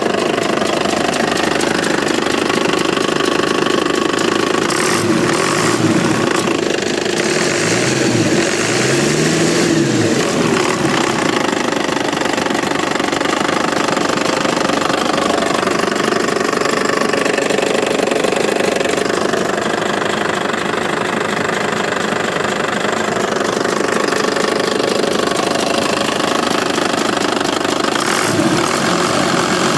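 Cummins 6BT inline-six diesel engine running steadily in an Atlas excavator, with a few short rises and falls in pitch between about five and ten seconds in.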